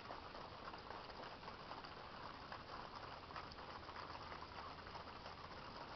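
A flock of wild turkeys pecking scattered corn off a driveway: a faint, dense crackle of many small pecks.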